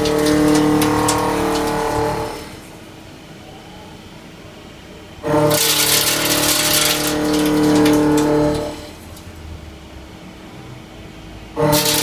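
CNC machine cutting in repeated passes: a loud whining cut that stops about two and a half seconds in, comes back about five seconds in for some three seconds, and starts again near the end, with the machine running more quietly in between.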